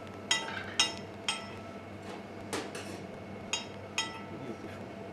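Metal spoon clinking against a plate during plating, about six sharp clinks that each ring briefly, over a low steady hum.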